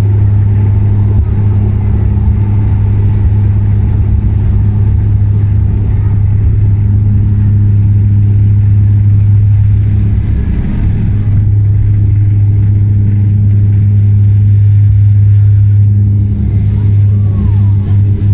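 ANA airliner's engines at take-off power during the take-off, a loud, steady low drone.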